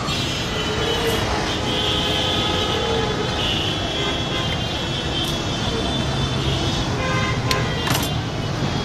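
Busy street traffic: a steady din of vehicles with horns tooting, loudest between about two and four seconds in. Two sharp clicks near the end.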